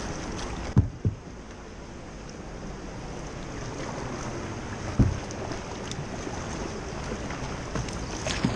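Rushing, broken river water hissing and splashing around a kayak's bow, heard close from a bow-mounted camera. A few sharp thumps stand out, and a splash of water breaks over the bow near the end.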